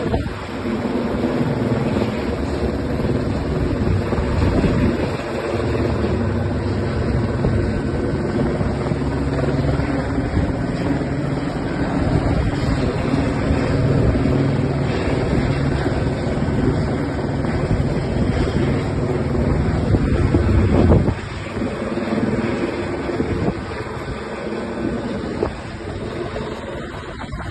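Helicopter running steadily, its engine and rotor noise mixed with wind buffeting the microphone; it grows quieter about 21 seconds in.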